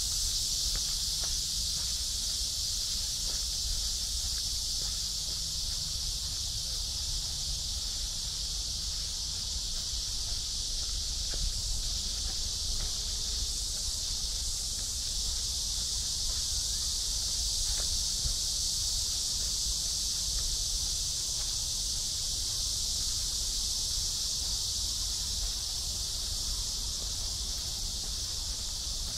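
Steady, high-pitched chorus of insects, unbroken throughout. Faint footsteps on a path sound beneath it.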